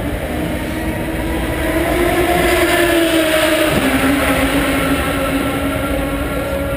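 Indy car engine passing at speed: its note rises and grows louder, then drops in pitch about four seconds in and fades slightly as the car goes by.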